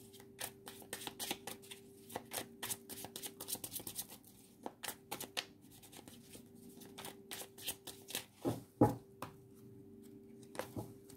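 A deck of tarot cards shuffled by hand: a quick run of soft card clicks and flicks, with a couple of louder knocks a little past two-thirds of the way through. A faint steady hum lies underneath.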